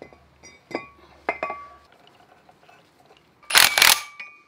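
Light metallic clinks as the wheel hub and new brake rotor are fitted together, then a quick run of loud metal-on-metal strikes about three and a half seconds in, each followed by a brief ringing, as the hub is knocked down to seat in the rotor.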